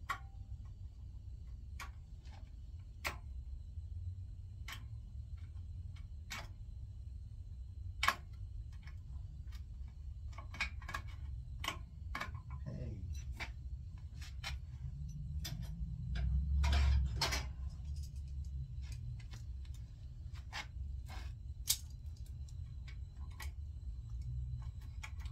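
Hand tools clicking and tapping on a rusted Delta Rockwell bandsaw while working at a stuck screw. Irregular sharp clicks run throughout, with a louder scraping stretch about sixteen seconds in, over a low steady hum.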